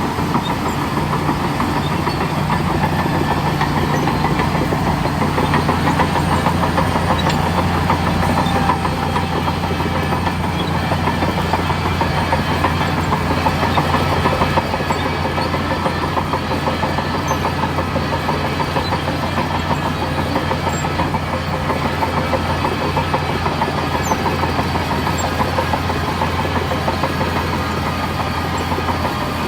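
Bulldozer's heavy diesel engine running steadily under working load, with a constant low hum and clatter; it eases slightly about halfway through.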